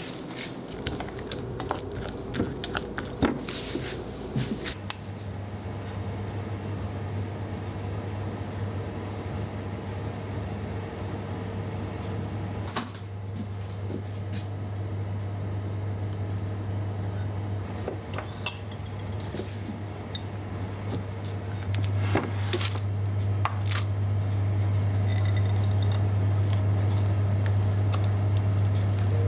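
A silicone spatula stirring and scraping thick cake batter in a glass mixing bowl, with scattered clicks and taps against the glass. From about five seconds in, a steady low hum runs underneath and grows louder near the end.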